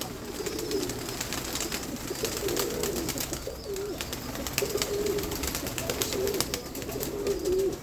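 Domestic pigeons cooing, one low wavering coo after another, with scattered faint clicks over them.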